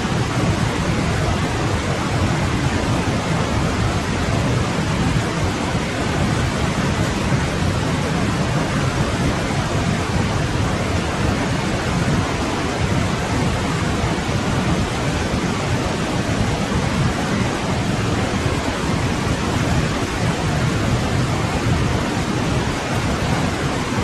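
Winter forest stream flowing: a steady, unbroken rush of running water, fullest in its deeper tones.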